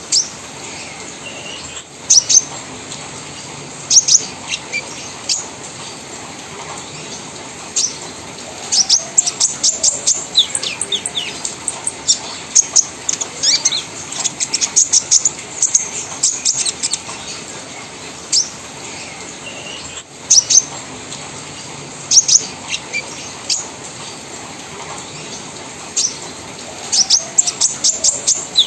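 Olive-backed sunbird singing: sharp, high-pitched chips and fast chattering trills in repeated bursts with short pauses between, the rapid 'trotol crewet' chatter.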